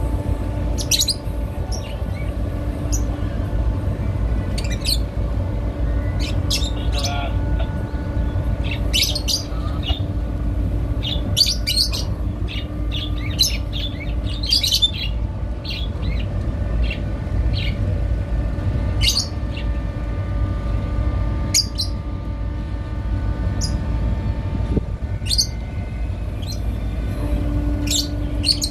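Small birds chirping in short, scattered calls throughout, over a steady low rumble and a faint, even engine hum that drops out about halfway through and returns near the end.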